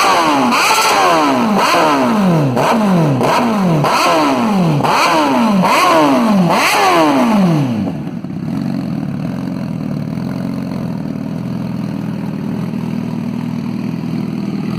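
2016 Honda CBR1000RR Fireblade's inline-four engine through a Hurricane aftermarket exhaust, blipped loud about once a second, each rev rising sharply and falling back, for about eight blips. About eight seconds in it drops back to a steady idle.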